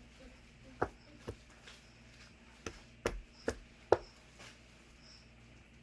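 Six sharp knocks or taps on a hard surface, irregularly spaced between about one and four seconds in; the last is the loudest.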